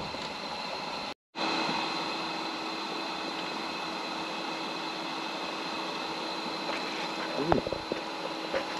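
A steady mechanical hum with a few held tones, cut to silence for a moment about a second in. A brief voice sound comes near the end.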